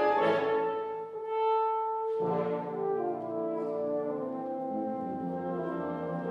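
Four French horns playing held chords in concert; a new, fuller chord comes in with a strong attack about two seconds in.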